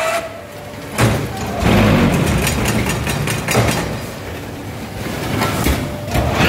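Concrete block-making machine line running: a loud mechanical rattle full of rapid metal clanks, starting suddenly about a second in.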